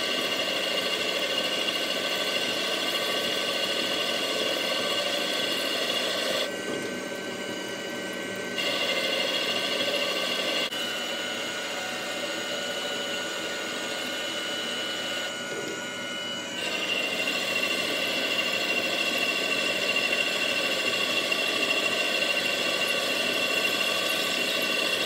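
CNC lathe boring out a cast-aluminium TD04 turbocharger compressor housing to take a larger compressor wheel: a steady machine whine with several high steady tones over a hiss of cutting. It drops quieter for a couple of stretches, about six seconds in and again from about ten to seventeen seconds in, then comes back up.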